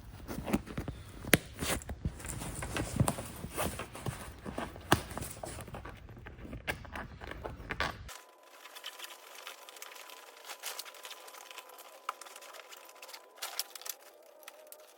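Handling noise from a golf cart enclosure being fitted: irregular clicks and knocks with rustling as the panels and snap sleeves are worked into place. About eight seconds in the sound cuts abruptly to a quieter, thinner background with a faint steady tone.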